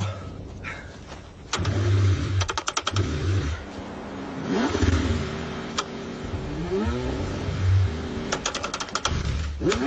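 Car engine being cranked again and again in freezing cold, struggling to start, in short bursts with rising and falling pitch sweeps and two quick runs of rapid clicks.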